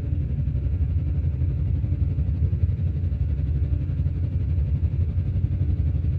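Low, steady rumbling drone with no clear pitch.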